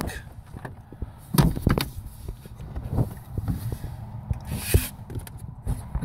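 A few scattered light knocks, the loudest pair about a second and a half in, and a brief rustle near the end: handling noise while working under a truck's dashboard.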